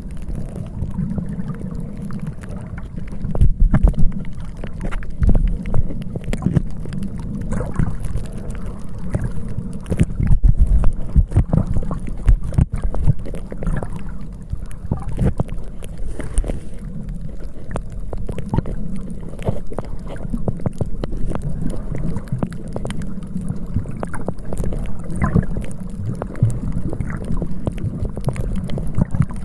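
Wind buffeting the microphone in irregular gusts, a low rumbling noise, with sea water washing beneath it.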